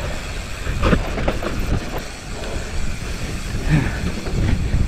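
Mountain bike rolling fast down a rough, rocky dirt trail: steady rumbling tyre and wind noise with repeated knocks and rattles as the bike hits rocks, on a front tire that is low on air.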